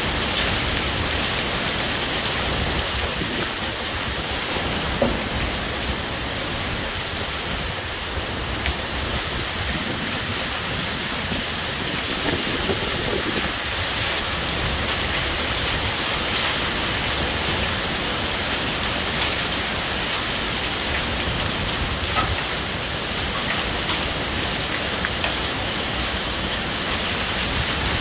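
Hail and heavy rain pouring down in a thunderstorm: a steady, dense hiss of falling water with a few louder ticks of stones striking.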